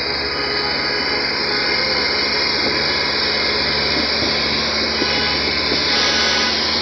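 Steady rumble and rushing noise of a vehicle on the move: the engine hums underneath, and wind and road noise rush over the microphone.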